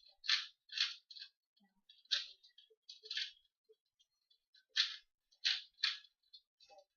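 Plastic 2x2 Rubik's cube being turned quickly during a timed solve: irregular runs of short clicks and clacks as the layers are twisted, with brief pauses between runs.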